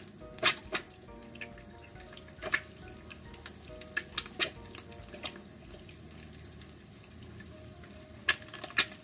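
An egg frying in a small nonstick pan, spitting with sharp irregular pops every second or two over a soft sizzle.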